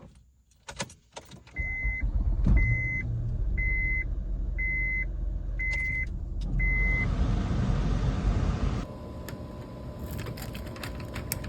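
A car with a few clicks near the start, then its engine running with a low rumble. An electronic warning chime beeps six times, about once a second. The rumble drops to a quieter steady hum with scattered clicks near the end.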